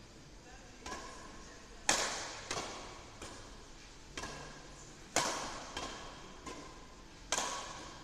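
Badminton racquets striking a shuttlecock during a rally: a series of sharp smacks roughly one a second, the loudest about two, five and seven seconds in, each ringing on in the echo of a large hall.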